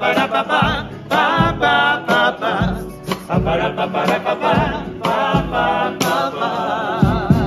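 A Cádiz street-carnival chirigota of men singing together in chorus, the melody held with a wavering vibrato near the end, over irregular low thuds.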